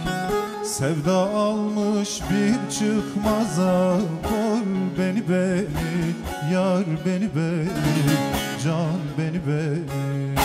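Bağlama (long-necked Turkish saz) plucked rapidly with a plectrum, a steady drone under a quick melody, with a man's voice singing a wavering, ornamented line over it from about a second in.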